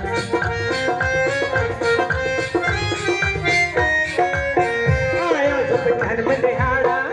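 Music: a melody of held notes stepping in pitch over a steady hand-drum beat.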